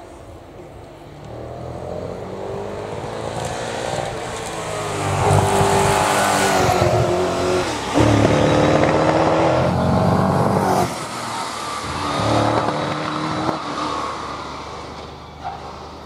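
A hillclimb racing car accelerating hard up the hill past the microphone. Its engine note rises, breaks sharply at gear changes about eight and eleven seconds in, climbs again, then fades away up the course.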